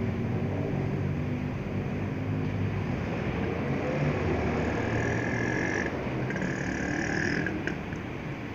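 Steady road traffic and engine hum from vehicles moving along a busy city street. Two short high steady tones sound one after the other between about five and seven and a half seconds in.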